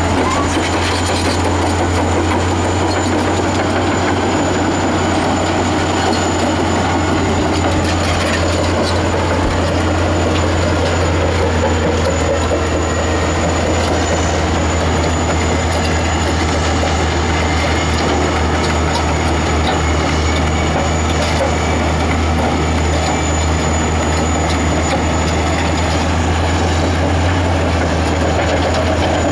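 Caterpillar D10T bulldozer, with its C27 V12 diesel, pushing a wheel tractor scraper under load while the scraper fills. The diesels make a steady, heavy low drone, and the dozer's steel tracks clatter faintly through it.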